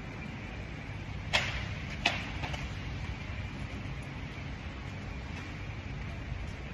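Steady low machinery hum with two sharp clicks, about a second and a half and two seconds in.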